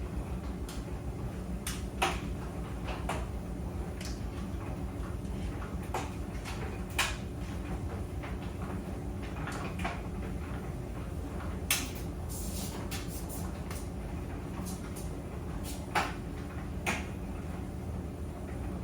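Clothes dryer running: a steady low rumble with sharp, irregular clicks and knocks every second or few, a quick cluster of them about two thirds of the way through.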